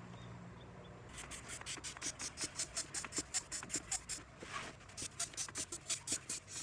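Hand-operated stand air pump worked in quick strokes to inflate an inflatable castle, with a short hiss of air on each stroke at about four or five a second. The strokes start about a second in and pause briefly just after the middle.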